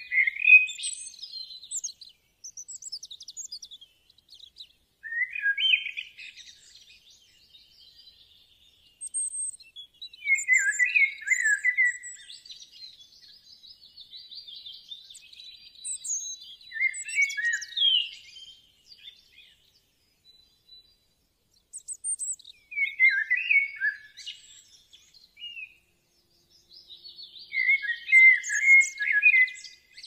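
Bali myna (Bali starling) calling: about six bursts of quick chirps and whistled notes, spaced a few seconds apart with short pauses between them.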